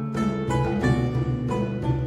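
Instrumental music on strings, with plucked notes struck in a regular rhythm over a low sustained line.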